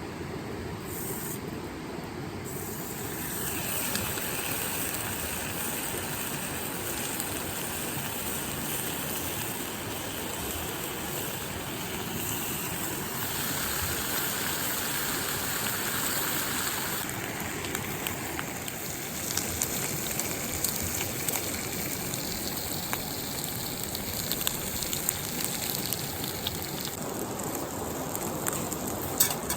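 River water running with a steady rush. A few light clicks and knocks come through in the second half.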